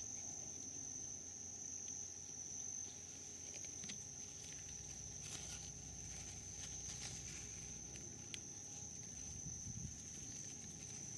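Crickets giving one steady, high-pitched trill, with a few faint rustles.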